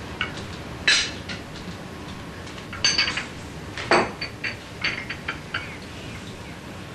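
Tableware clinking on a dining table: a string of light clinks and knocks of dishes, glasses and cutlery, the sharpest about a second in and around four seconds in.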